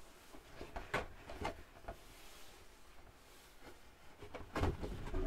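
Cardboard model-kit box handled by gloved hands on a cutting mat: a few soft taps and a louder knock near the end.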